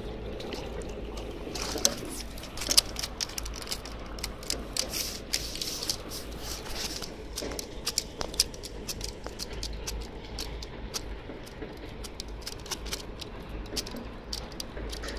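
Trout flopping in a landing net on the bank: irregular slaps and taps, busiest and loudest in the first half, then sparser.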